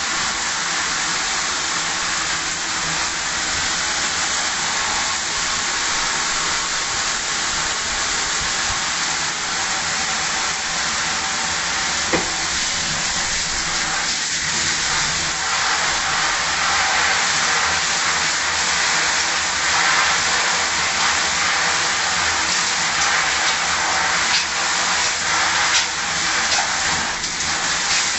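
Shower running: a steady hiss of water spray falling in a shower stall, a little louder in the second half.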